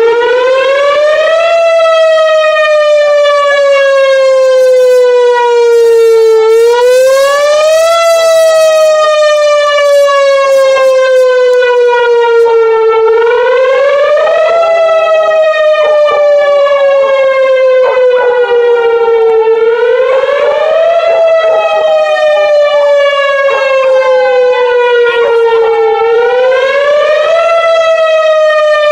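Whelen R4 electronic outdoor warning siren sounding its Attack signal. It is a loud wail that climbs quickly for about a second and a half, then slides down for about five seconds, repeating about every six and a half seconds. A dog howls along faintly partway through.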